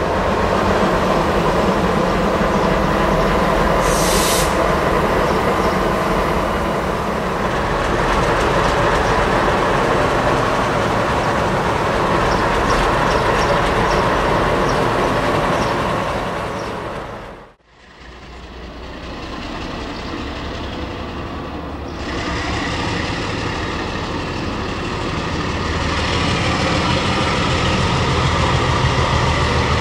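Train on the move: steady rolling noise with rail-joint clickety-clack, and a brief high squeal about four seconds in. After a sudden cut past halfway, the ALCO DL500C diesel locomotive runs its engine as it brings its train towards the platform, growing louder near the end.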